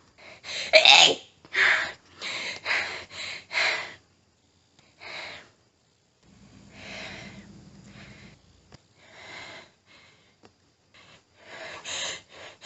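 A woman's hitching, panting breaths in a sneezing fit. There is a loud burst about a second in, then a quick run of short gasps, quieter breathing through the middle, and hitching breaths building again near the end toward the next sneeze.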